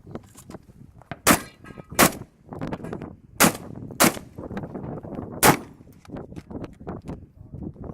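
Shotgun fired five times: two quick pairs, then a single shot, with lighter clicks and knocks of handling between them.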